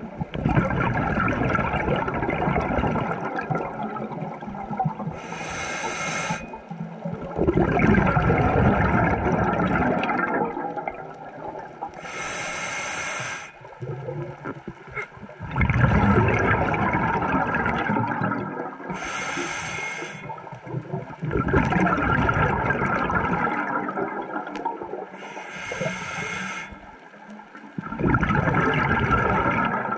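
Scuba diver breathing through a regulator, heard underwater: a short hissing inhale followed by a longer rush of bubbling exhaust, repeating about every six to seven seconds.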